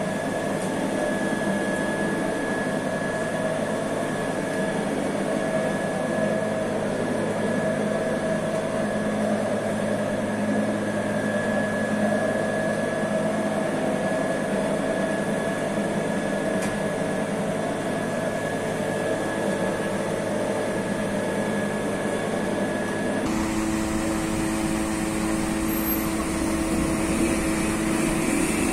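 Steady hum of bakery machinery with a few held whining tones; about 23 seconds in it changes abruptly to a different steady hum with lower held tones.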